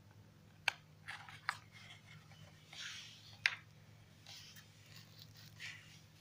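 Handling noise: a few sharp clicks and soft scrapes and rustles as a plastic external hard drive is handled and set aside, over a faint steady low hum.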